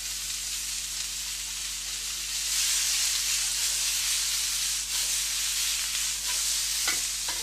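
A pork and vegetable stir-fry sizzling in a hot frying pan, the sizzle swelling louder about two seconds in and easing off near the end, with a couple of light knocks just before it ends.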